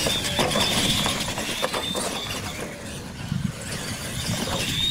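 Electric R/C monster trucks racing on dirt: a high-pitched electric motor and gear whine that fades in the middle and comes back near the end, with knocks and clatter from the trucks hitting the ground and the ramps.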